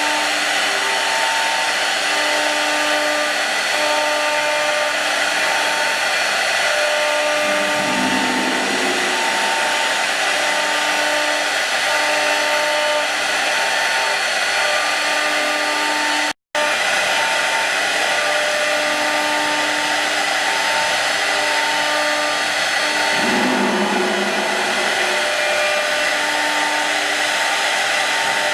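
Four 3 kW air-cooled spindles of a 4-axis rotary CNC router running while rough-carving: a steady rushing whir with a high whine, and tones that come and go as the cutters work. The sound drops out for a split second about halfway through.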